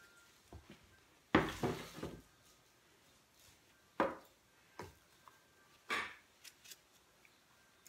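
Kitchen handling sounds: a short clatter of several knocks about a second and a half in, then a plastic measuring jug knocked down onto the counter about four seconds in, and a cardboard box of salt picked up with a knock near six seconds.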